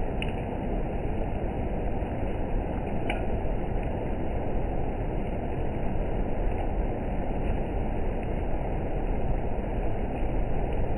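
Heavy rain pouring down steadily, with an occasional sharp tick.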